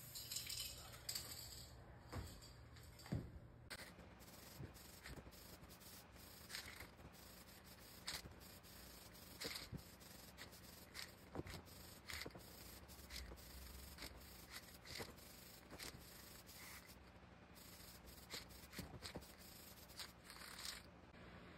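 Aerosol spray-paint can hissing faintly in many short bursts, about a second apart, as a first coat of paint goes on.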